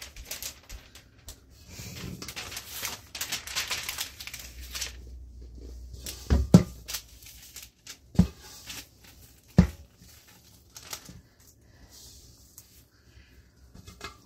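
Parchment paper crinkling as it is handled and laid out, then three dull thumps a second or two apart while pie dough is turned out of a stainless steel mixing bowl onto the paper.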